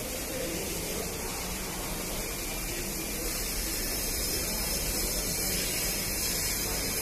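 Steady hissing background noise, even throughout, with no distinct knocks or calls.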